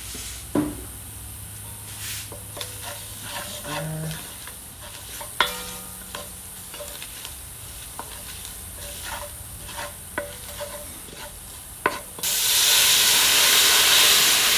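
A spoon stirring and scraping fried onions and curry spices in hot oil in a pot, with light sizzling and scattered clicks of the spoon against the pot. About twelve seconds in a loud, steady hiss starts suddenly.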